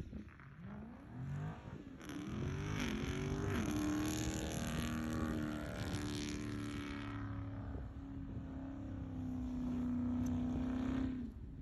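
Dodge Charger Scat Pack's 392 Hemi V8 revving up and down in a few quick swells, then held at steady revs for several seconds before dropping off near the end.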